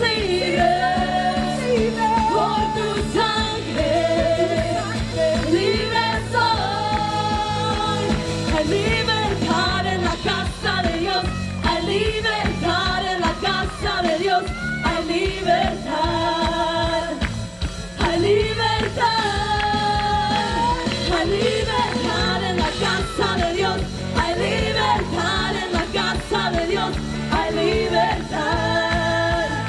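Live worship music: a band playing a praise song with singing over a steady beat.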